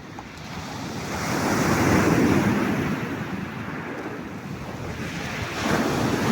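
Sea waves breaking on the shore: one wave builds to a peak about two seconds in and washes back, and the next arrives near the end.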